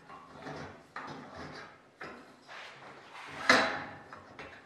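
Steel hinge and plastic spacers sliding along a steel tube, scraping and knocking against it, with a few sharp clacks; the loudest comes about three and a half seconds in.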